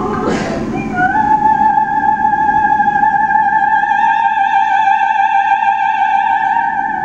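Female operatic soprano voice sliding up into one long high note about a second in and holding it with a light vibrato, over soft ukulele strumming.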